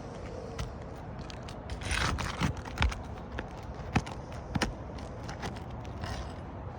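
Hand work on a roof shingle while removing a wind-damaged shingle: a scrape about two seconds in, then scattered sharp knocks and clicks.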